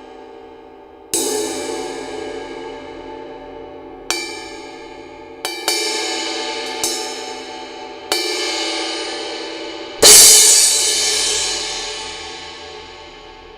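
Arborea Knight 16-inch crash cymbal struck several times at varying strength, each hit left to ring and fade slowly, with two light taps close together around the middle. The hardest crash comes about ten seconds in and rings loudest and brightest.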